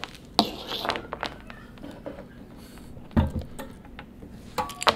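Handling noise of power cords and plugs at a spectrum tube power supply on a lab bench: a sharp knock about half a second in, a heavier knock about three seconds in, and smaller clicks and rustles between and near the end.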